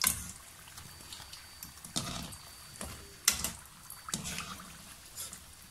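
Hot oil sizzling as samosas and rolls deep-fry in an aluminium pan, with several sharp clinks of a wire-mesh skimmer against the pan, the loudest about three seconds in.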